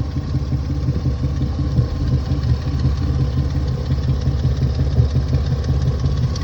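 Car engine idling with a misfire, a steady low pulsing run that a spark plug change is suggested to cure.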